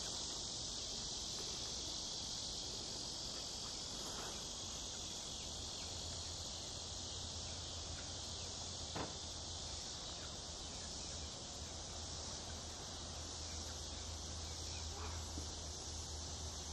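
Steady chorus of insects such as crickets: a constant high, even buzz that holds through without a break. A faint low hum comes in about six seconds in, and there is a single soft click around nine seconds.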